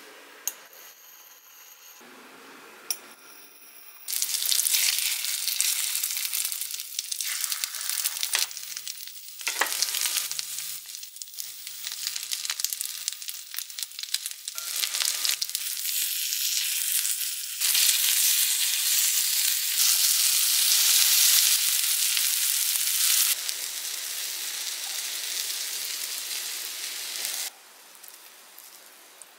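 Egg-battered oysters (gul-jeon) sizzling in oil in a frying pan. The sizzle starts about four seconds in, swells louder past the middle with a few sharp clicks along the way, and cuts off suddenly near the end.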